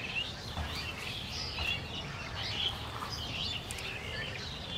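Many small birds chirping and calling over and over, with a steady low background rumble beneath them.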